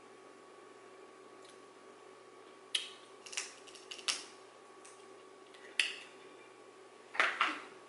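Crab shell being cracked and picked apart by hand: a series of short, sharp cracks and snaps, irregularly spaced, with the loudest pair near the end.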